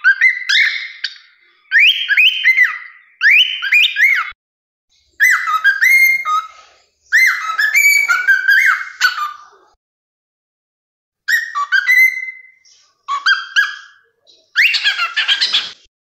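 Cockatiel whistling its song in short phrases of rising and falling notes, about eight phrases with brief silences between them.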